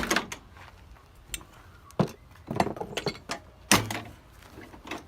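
Plastic vehicle grille being worked loose and pulled out: a run of clicks and knocks as it pops free, with the loudest knock about three-quarters of the way through.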